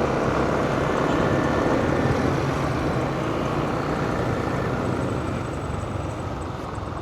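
Steady road, engine and wind noise from a vehicle on the move, easing slightly near the end.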